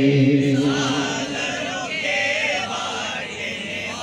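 Group of men chanting a devotional Urdu manqabat in praise of Baba Tajuddin, with no instruments: a long held sung note on 'Baba' ends about a second in, then quieter wavering singing follows.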